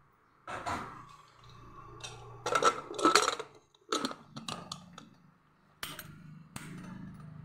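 Aluminium pressure cooker lid being fitted and locked shut: a series of metal clinks, knocks and scrapes, loudest about halfway through, with two sharp clicks near the end.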